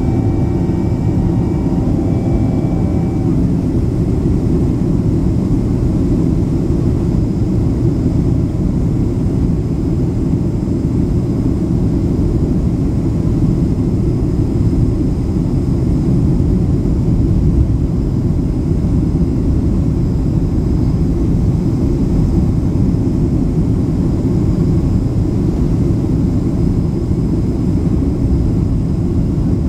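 Steady low roar of a Boeing 767-300ER in flight, the engines and rushing air as heard inside the cabin, with a few faint tones fading out in the first couple of seconds.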